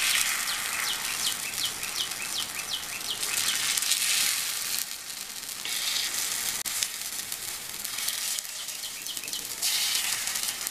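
Ghee sizzling in the wells of a paniyaram pan as ghee appams are turned one by one with a wooden stick. The sizzle swells louder several times and then eases back.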